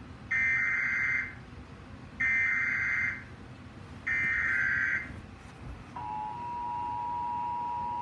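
Emergency Alert System tornado warning played through a TV's speaker: three harsh bursts of SAME header data, each about a second long, then about six seconds in the steady two-tone EAS attention signal begins. The header and attention tone mark the start of an emergency alert broadcast.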